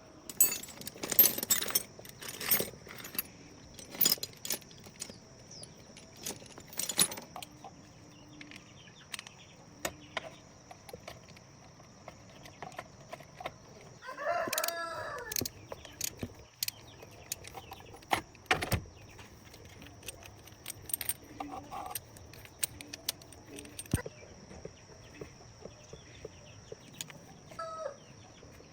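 Sharp metallic clinks and knocks, thickest in the first few seconds, and a rooster crowing once about halfway through, with a steady high insect drone underneath.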